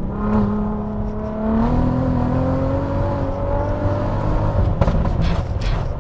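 Turbocharged 3.2L VR6 in a Mk4 Golf GTI accelerating, its engine note climbing slowly and steadily in pitch for about four seconds. A few short, sharp cracks follow near the end.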